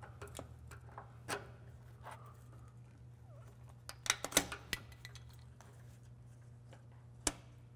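A flathead screwdriver prying plastic caps out of a Toyota Tacoma's frame: scattered clicks and light scrapes, with a quick run of sharp clicks about four seconds in and one more sharp click near the end.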